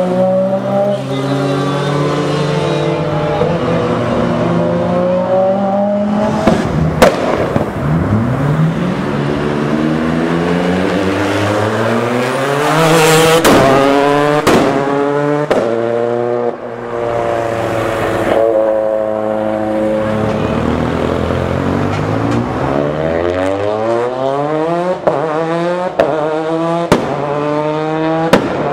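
Rally cars accelerating hard one after another, engines revving up in rising sweeps and dropping at each gear change, with sharp exhaust bangs and pops scattered through.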